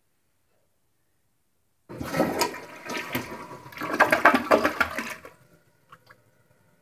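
Kohler Wellworth toilet flushing: a sudden rush of water starts about two seconds in, swirls loudly down the bowl for about three seconds, then dies away.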